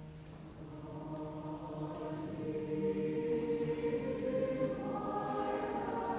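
Choir singing in parts, voices entering softly and swelling to full strength over the first few seconds.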